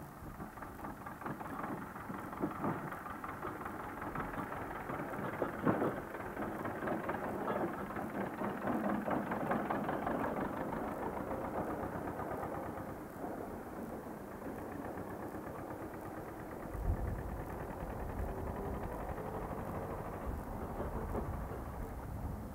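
Tractor engine running as the tractor pulls a wooden trailer along the road, growing louder toward the middle as it comes close. A low rumble joins in about three-quarters of the way through.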